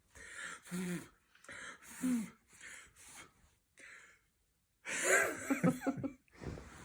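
A pet animal making a series of short, breathy noises, with a louder, denser run of them about five seconds in.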